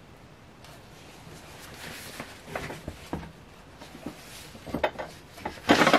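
Handling of an old paper sheet-music book: soft page rustles and light knocks, with a loud, brief burst of handling noise just before the end.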